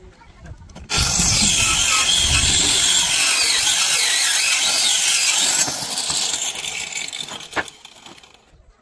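Handheld electric saw cutting through a plywood sheet. It starts abruptly about a second in with a loud, steady cutting noise, then drops away after about five seconds and winds down, with a single sharp click near the end.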